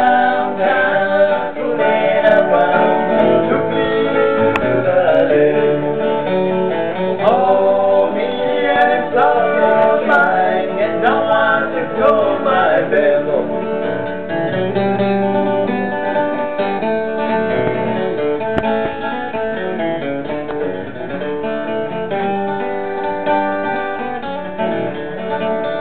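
Two acoustic guitars played together live, with a man singing over them.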